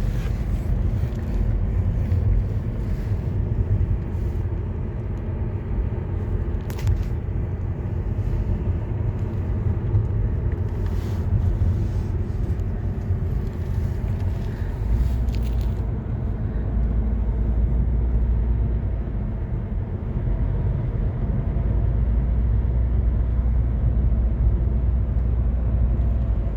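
Steady low road and engine rumble from inside a moving car's cabin, with a few faint clicks.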